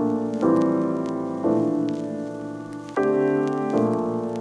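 Background music: piano chords struck four times, each starting sharply and then fading away.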